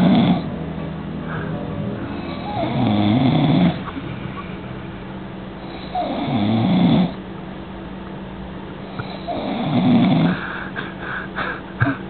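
Snoring: a sleeper's loud, rasping snores, each about a second long and coming roughly every three seconds. A few short clicks sound near the end.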